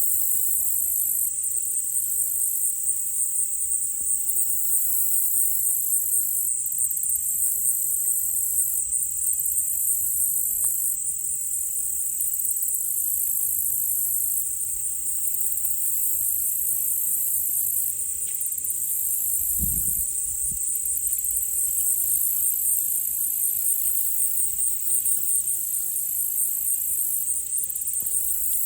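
Dense insect chorus: a steady, high, fast-pulsing trill with no pauses. About twenty seconds in, a single low thump sounds under it.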